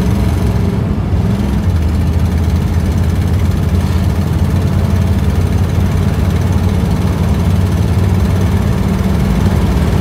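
1955 Ford Fairlane's engine and exhaust droning steadily at cruising speed, heard from inside the cabin with road noise.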